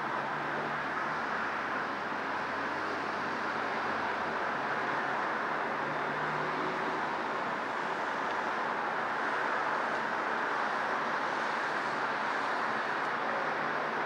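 Steady rush of distant road traffic, an even wash of tyre and engine noise with no single vehicle standing out.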